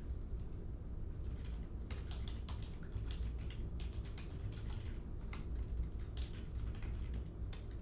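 Trading cards being handled and flipped through, irregular light clicks and snaps several times a second, over a steady low hum.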